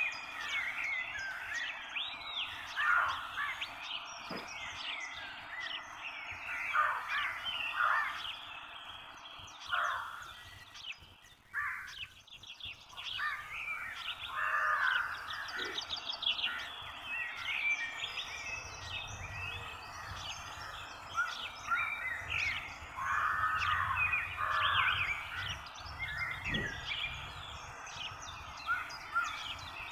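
Many birds chirping and calling, short overlapping calls throughout, some of them harsher caws.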